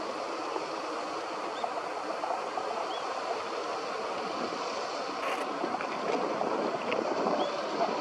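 Steady rushing of wind through the reeds and branches, with no pauses or gusts standing out.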